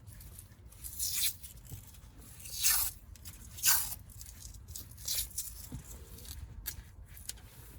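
Electrical tape being pulled off the roll in short rasping tears, about five times, while loose wiring is taped up.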